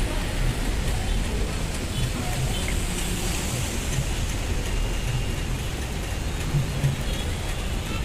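Steady street traffic noise: a constant low rumble with a hiss over it.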